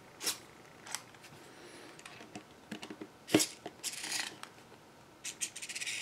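Metal tool scraping and clicking inside a brass padlock body as it is pushed down to reach the works inside. The sounds are scattered, with a sharp knock about halfway through, a short scrape after it, and a quick run of ticks near the end.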